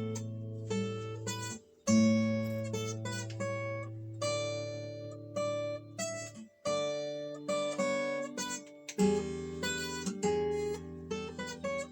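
Yamaha FG720SL acoustic guitar (solid spruce top, laminated nato back and sides) played freely: chords struck and left ringing, a new one every two seconds or so, with single notes picked in between.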